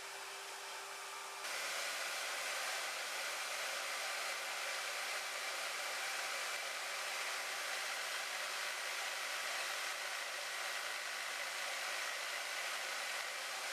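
Harbor Freight band saw running steadily through a slow cut in metal stock. About a second and a half in it gets louder and hissier, and it holds steady after that.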